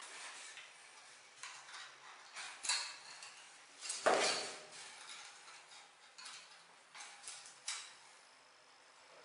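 Small clicks, clinks and scrapes of a folding multi-angle ruler being opened, adjusted and laid on a ceramic floor tile, with one louder scrape about four seconds in.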